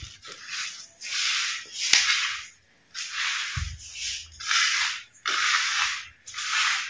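A hand rubs and mixes sugar into grated coconut in a steel plate, in repeated strokes of about one a second.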